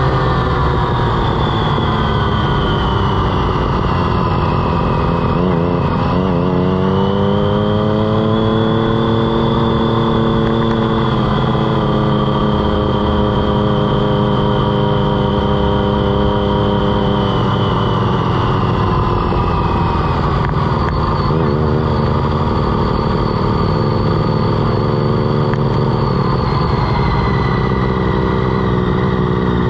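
Onboard motorcycle engine running at moderate revs under heavy wind rush on the microphone. Its note drops and picks up again about five seconds in, then sinks slowly as the bike eases off.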